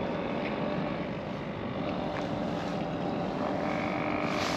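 Steady outdoor background noise with a faint mechanical hum running through it, like distant traffic or a machine, swelling slightly near the end.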